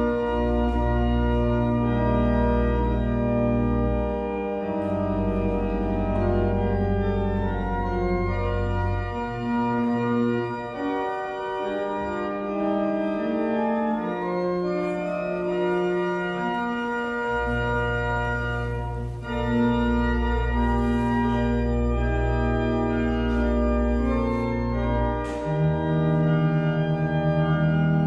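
Church organ playing a closing voluntary: full sustained chords that change every second or two over a deep pedal bass. It starts suddenly with a full chord, and the pedal bass drops out for several seconds in the middle.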